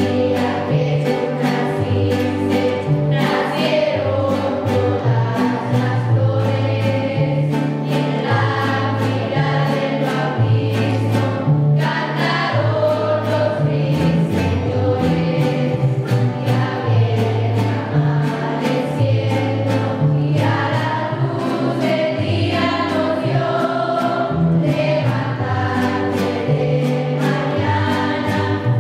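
Student mariachi ensemble playing: violins carry the melody over steadily strummed guitars and a deep bass line that steps from note to note about once a second.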